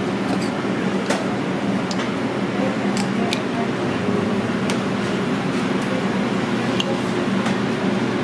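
Steady hum of kitchen equipment under indistinct background voices, with a few sharp clinks of metal utensils on dishes scattered through it.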